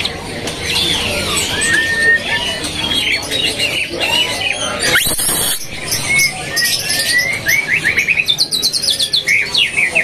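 Caged songbirds singing: clear whistled phrases, then fast repeated trilling notes over the last few seconds. A short rising sweep comes about five seconds in.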